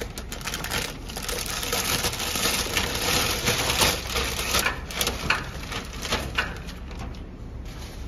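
Plastic packing film crinkling and rustling with many small crackles as it is handled and pulled between the steel rollers of a packing machine. It is loudest in the middle and dies down near the end.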